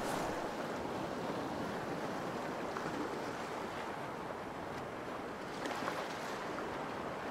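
Small sea waves washing steadily onto a pebble beach, an even hiss of surf.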